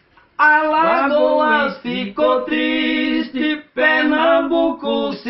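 A man singing a toada unaccompanied, in long drawn-out phrases with brief breaks between them; the singing starts about half a second in.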